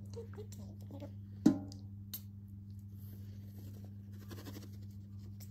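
A single sharp knock on a hollow wooden drawer panel about one and a half seconds in, with a brief ringing tail, followed by a few small taps and light scuffling. A steady low hum runs underneath.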